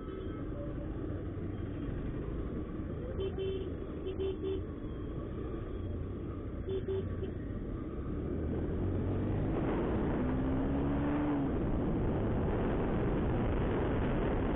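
Honda SP125 motorcycle engine running at low speed in slow traffic, with a few groups of short horn beeps. From about eight seconds in, the bike picks up speed and wind noise on the microphone grows louder.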